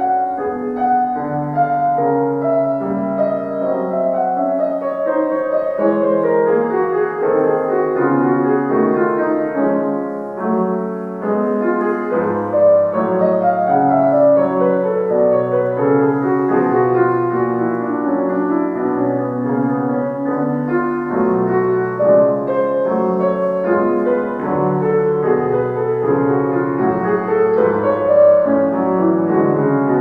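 Concert grand piano played solo in a classical piece: a steady stream of many notes in quick succession, mostly in the middle and lower range, with no pause.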